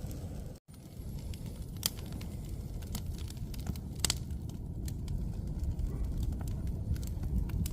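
A big campfire burning, with scattered sharp crackles and pops, two stronger pops about two and four seconds in, over a steady low rumble.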